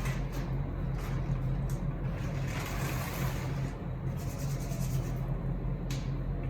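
A package being pulled and rustled open by hand, with a few sharp crinkles and a stretch of rustling about halfway through, over a steady low hum.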